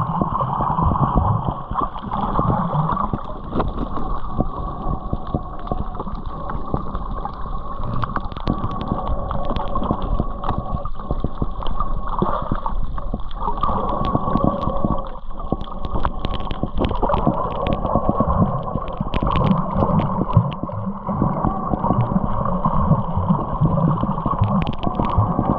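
A motorboat running steadily at sea, its engine drone mixed with water rushing and splashing against the hull, and wind on the microphone.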